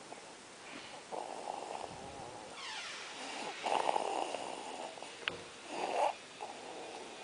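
One-month-old baby snoring, about three noisy breaths roughly two seconds apart, with a brief click about five seconds in.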